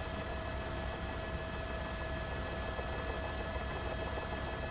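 Steady helicopter noise heard from on board: a fluttering low rumble from the rotor and engine, with a few constant whining tones over it.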